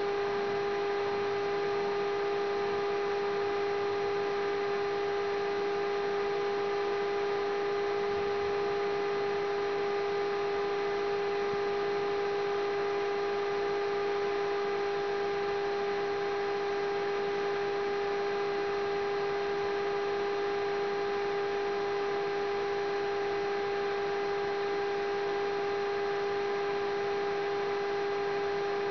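A steady, unchanging electrical-sounding hum: one pitched tone with evenly spaced overtones over a faint hiss.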